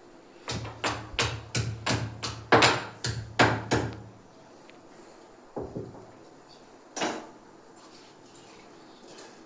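About a dozen sharp knocks on a hard kitchen surface in quick succession, roughly three a second, then a couple more near the middle and one single knock later. These are hard strokes of kitchen prep work on small onions.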